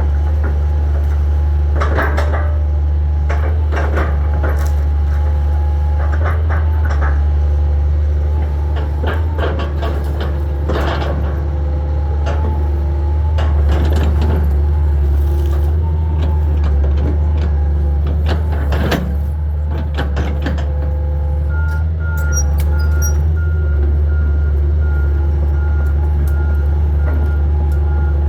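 Hitachi 225 excavator's diesel engine running steadily under working load, with repeated knocks and cracks as debris and wood are moved. From about three-quarters of the way in, a steady beeping alarm sounds about twice a second.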